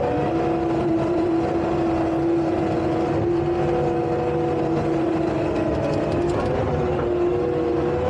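Takeuchi tracked skid steer's diesel engine running with a steady whine over a low rumble, the pitch dipping briefly about six seconds in as the machine works.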